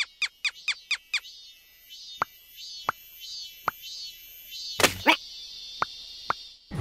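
Cartoon sound effects: a quick run of five falling squeaky chirps, then single drip-like plinks about a second apart, with two short louder scuffs near the end. A faint high trilling runs underneath.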